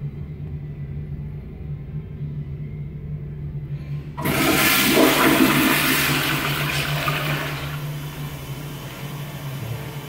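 Gerber Ultra Flush pressure-assisted toilet flushing: a sudden loud whoosh about four seconds in, easing off over the following few seconds, over a steady low hum.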